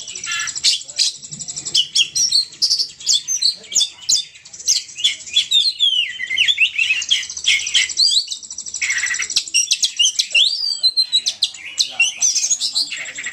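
Continuous dense, rapid high-pitched chirping and twittering of many small birds overlapping one another: a lure call (pikat) of the bird known in Indonesia as burung poci.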